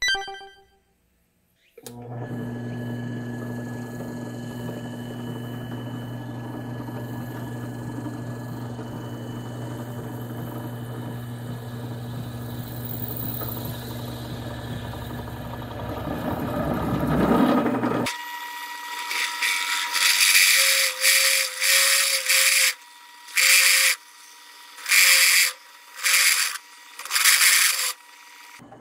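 SK11 benchtop drill press running with a step drill boring a 22 mm hole through stacked 2 mm stainless steel flat bar: a steady motor hum under cutting noise that grows louder, then, from about two-thirds of the way in, a series of short loud bursts of cutting noise as the bit is fed into the steel.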